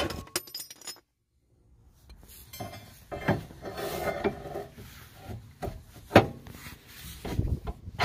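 Metal clanks and scraping as a long steel pry bar levers against a car's lower control arm at the ball joint. The knocks are irregular, the loudest about six seconds in, with grinding and rubbing between them.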